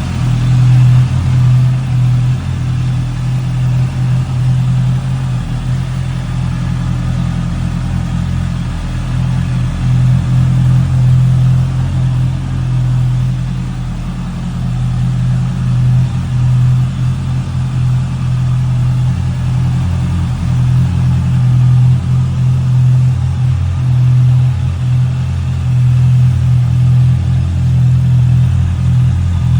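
Honda CB650F's inline-four engine running through its stock exhaust at a steady, low, even pitch, with small swells in loudness but no clear revving.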